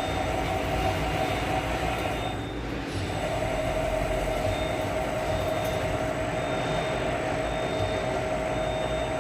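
CNC lathe running a live-tool machining operation: a steady machine whine over a broad mechanical hum. The whine drops out for about a second near the 2.5-second mark, then comes back slightly lower in pitch.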